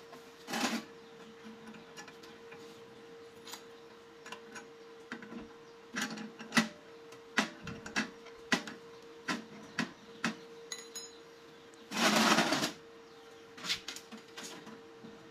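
Metal parts clinking and knocking against each other and the steel workbench as bolts, nuts and a threaded rod are fitted to a homemade angle-iron cut-off stand: scattered sharp clicks, with a longer rough noise lasting under a second about twelve seconds in. A steady faint hum runs underneath.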